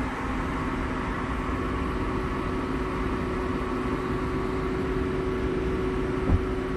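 Steady hum of an idling patrol car, with a low, even drone that holds constant. A single short thump sounds about six seconds in.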